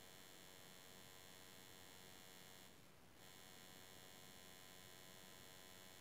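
Near silence with a faint, steady electrical buzz made of many evenly spaced tones, which drops out for about half a second about halfway through.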